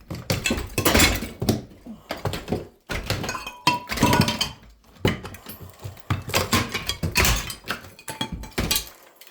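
Hammer smashing ceramic wall tiles off a wall: an irregular run of knocks, with broken tile pieces clinking and clattering as they crack and fall.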